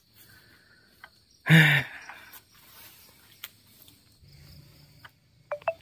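One loud, short chop about a second and a half in, from a harvesting chisel pole striking an oil palm, over a steady high insect buzz; a few faint ticks follow.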